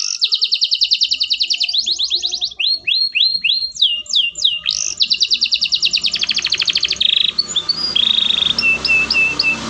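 Domestic canary singing a loud, fast song. It runs through rapid trills of closely repeated high notes, then a run of downward-swooping whistles about three seconds in, then another fast trill, and ends with short separate chirps.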